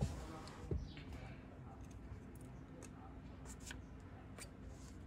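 Faint, scattered small clicks and taps over a low steady hum: screws and plastic glove-box trim being handled while the dashboard is taken apart.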